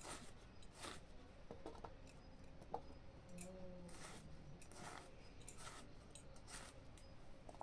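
Faint, short cutting or scraping strokes, irregularly about once a second, typical of ingredients being cut by hand.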